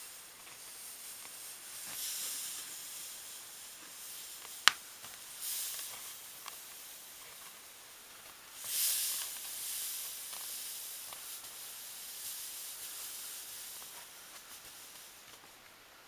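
Fine magnetite powder being poured around a graphite crucible: a soft hissing trickle that swells and fades several times, loudest about nine seconds in. One sharp click about five seconds in.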